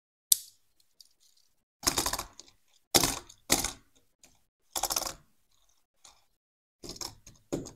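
A sharp click, then a series of short rattling scrapes as a small die-cast toy car is set down and pushed back and forth on the cardboard floor of a box.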